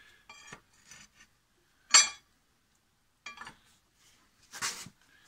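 Steel bar knocking and clinking against the crankshaft and block of a Chevy 235 straight-six as it is levered to turn the crank, which does not budge because the engine is seized. Five metallic knocks with a ringing tone, the loudest a sharp knock about two seconds in.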